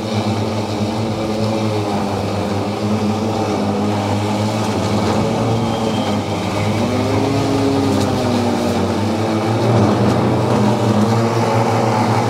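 EGO 52-inch battery-powered riding mower cutting tall, wet grass: its electric triple-blade deck running at full speed with a steady hum. Partway through, a tone rises and falls briefly.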